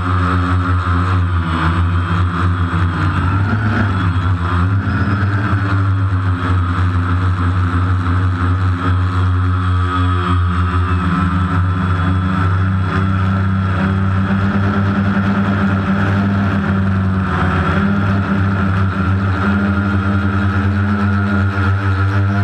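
Multicopter's electric motors and propellers humming steadily. The pitch dips and rises again a few seconds in, then holds.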